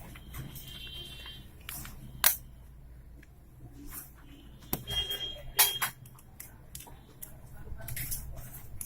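Sharp clicks and two brief high electronic beeps, one near the start and one about halfway through, over a low steady hum.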